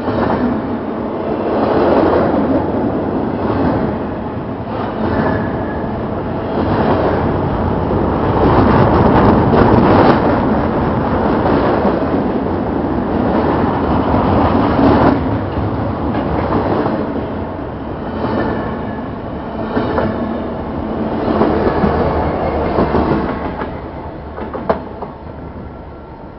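Double-stack intermodal freight train rolling past close by, its wheels clacking over the rail joints. The sound falls away near the end as the last car goes by.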